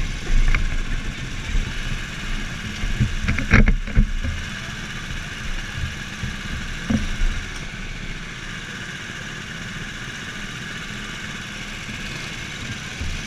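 Go-kart engines idling in a line of karts, a steady mechanical drone. A few sharp knocks and thumps come in the first four seconds, loudest about four seconds in.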